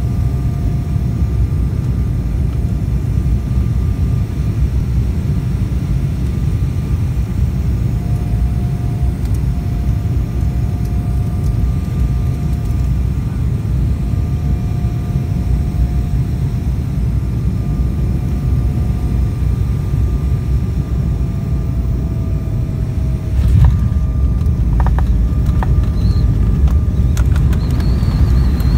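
Steady rumble of engines and airflow heard inside a passenger airplane's cabin on its descent to land, with a faint wavering whine above it. About 23 seconds in, a few knocks and rattles come and the noise gets louder, as the plane touches down on the runway.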